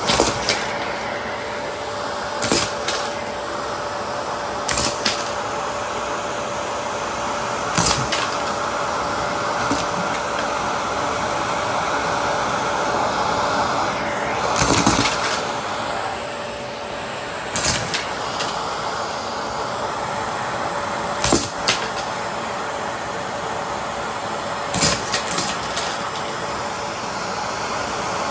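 Bosch BGS21X320 bagless vacuum cleaner running steadily with a carpet brush, with a steady hum over its suction noise. Short, sharp clatters every few seconds as buttons are sucked up.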